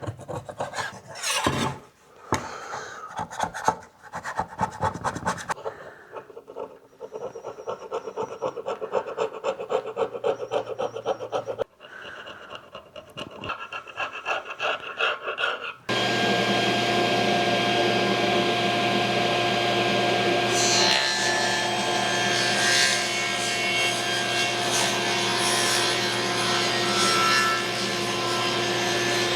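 Rapid scraping and rasping of wood, stroke after stroke, for about sixteen seconds. Then a power-tool motor starts abruptly and runs at a steady pitch.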